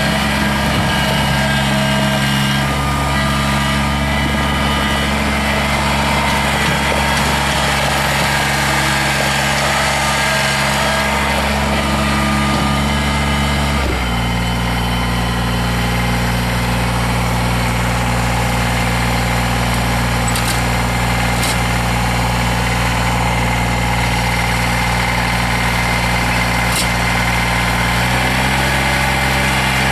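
2004 Kubota BX22's small three-cylinder diesel engine running steadily. Its speed drops about halfway through and picks up slightly near the end.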